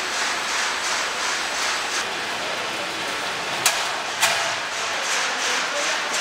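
Steady, dense rattle of shelled peanuts running over a factory conveyor and sorting table. Two sharp clicks about half a second apart near the middle.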